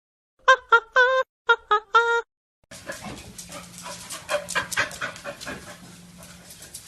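A dog making about six short high-pitched yips in quick succession, then panting and snuffling in a run of rapid breaths.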